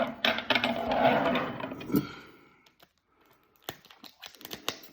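Handling noise from a cardboard trading card box being picked up and moved by hand: rustling and scraping with small clicks for about two seconds, then a few light taps near the end.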